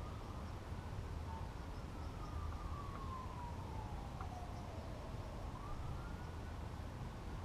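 Faint emergency-vehicle siren wailing: a single tone that glides slowly down over a few seconds and rises again near the end, over a steady low hum.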